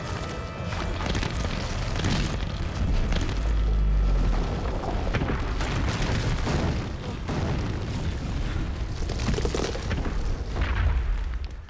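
Film sound of a cave entrance collapsing: heavy booming crashes and deep rumbling of falling rock, under orchestral music, dying away near the end.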